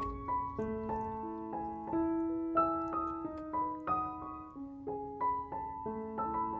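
Background piano music: a steady run of notes, several a second, each one ringing on under the next.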